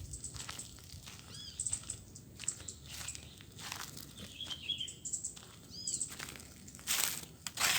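Dry crackling and rustling of nest material being picked at by a small bird, with a louder crunch near the end. A few short bird calls sound over it: two arching whistled notes and a brief twitter in the middle.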